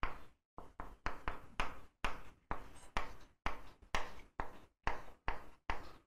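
Chalk on a chalkboard drawing a ring of small circles: quick taps and short scrapes of the chalk, about three a second.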